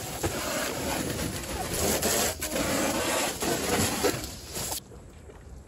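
A garden hose being yanked and dragged while water sprays from it: a steady rushing hiss mixed with scraping that cuts off suddenly near the end.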